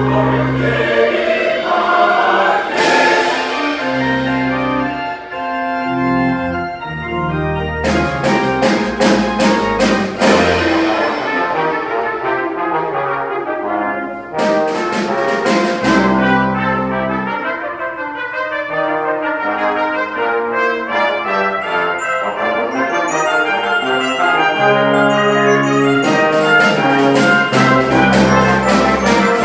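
Brass ensemble with organ and percussion playing an instrumental passage: trumpet lines over low held tuba and organ notes, punctuated by several cymbal crashes, with quick repeated cymbal strokes building in the last few seconds.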